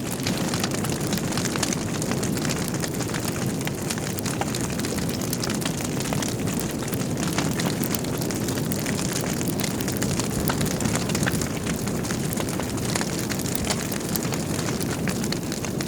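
Wood fire burning in a fireplace: a steady low rumble of flames with frequent sharp crackles and pops from the burning logs.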